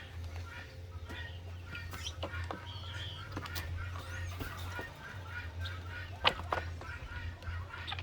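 Farmyard poultry calling in short, repeated notes over a steady low hum, with two sharp knocks about six seconds in.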